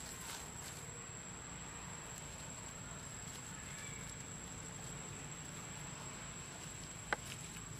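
Steady high-pitched insect drone, such as crickets or cicadas, over a low rumble, with one sharp click about seven seconds in.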